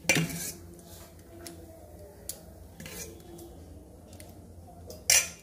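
Metal serving spoon scraping against a steel vessel of curry: two short scrapes, one at the start and one near the end, with a few light clinks between.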